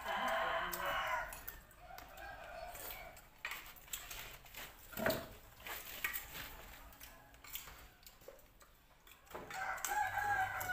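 Rooster crowing, once at the start and again near the end, each crow about a second and a half long. In between, spoons clink on plates with a sharp knock about five seconds in.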